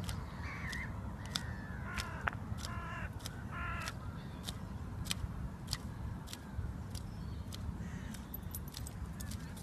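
A few short calls from a bird over a steady low rumble, with sharp clicks about once or twice a second.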